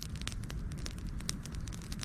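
Wood campfire crackling, with many small sharp pops over a steady low rumble.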